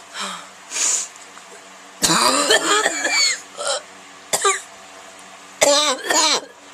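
A person's harsh, barking cough, in several bouts with a pitched, voiced rasp in them: the first and longest about two seconds in, then short ones near three and a half and four and a half seconds, and another bout near the end. Two short noisy breaths come in the first second.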